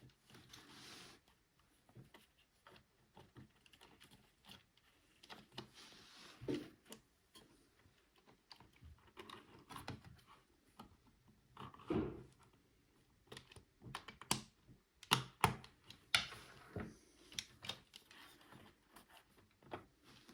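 Plastic keycaps on an Amiga keyboard clicking and knocking at irregular intervals as they are worked on the switches. The sharpest clicks come close together in the second half.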